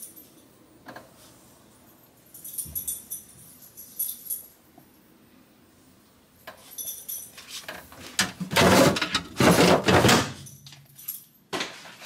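Quiet room tone with a few light clicks, then rattling, jangling handling noise around an open refrigerator. It builds to two loud rustling bursts about two-thirds of the way through.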